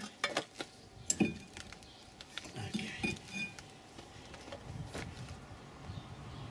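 Metal brake parts clinking and knocking as a car's rear brake caliper and worn pads are handled: a quick cluster of sharp clinks, a louder knock about a second in, then a few lighter clicks.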